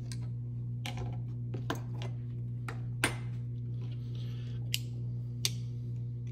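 Pocket folding knife being handled, its blade snicking open and shut: about six separate sharp metallic clicks, the loudest about three seconds in, over a steady low hum.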